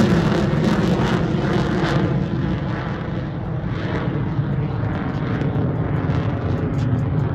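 Loud jet roar of an F-16 fighter in flight, a deep rumble whose high hiss thins out about two seconds in as the jet draws away.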